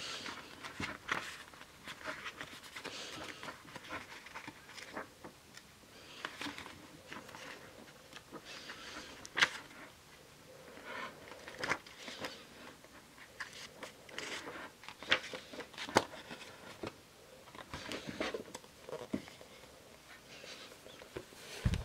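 Paperback book being leafed through and handled: paper pages rustling on and off, with a few sharp clicks and taps.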